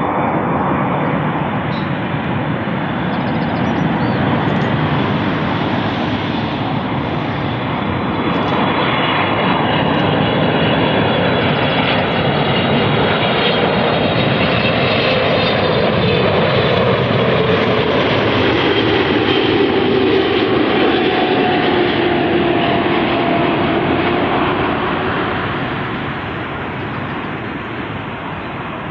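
Boeing 777-300ER's GE90-115B turbofan engines passing close on landing: a loud, steady jet roar with whining tones that slide down in pitch as the aircraft goes by, fading near the end.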